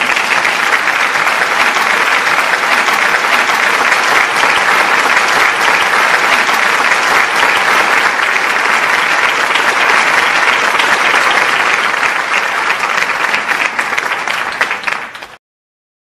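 Audience applauding: dense, steady clapping that fades out near the end.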